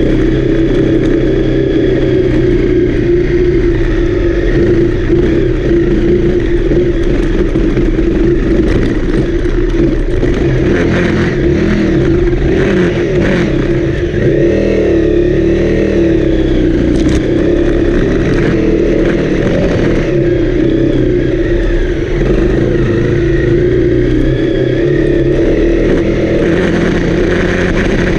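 Honda CRF250L's single-cylinder four-stroke engine running steadily under way, its pitch rising and falling a little with the throttle.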